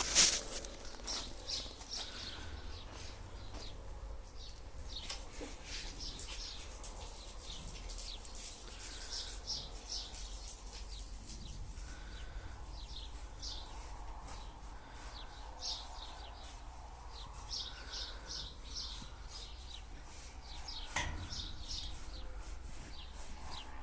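Small birds chirping in short, irregular calls over a low steady background, with one sharp sound right at the start.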